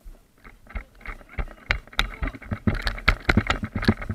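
Airsoft rifle firing a string of single shots, sharp clicks with a knock at each, about three a second and quickening toward the end.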